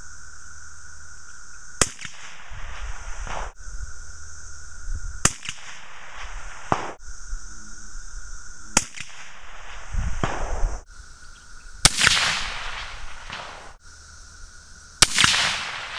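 Suppressed rifle shots from a bolt-action 22-243 fitted with a Delta P Brevis 6.5 suppressor: three sharp cracks about three and a half seconds apart, then two louder shots with a longer ring-out near the end.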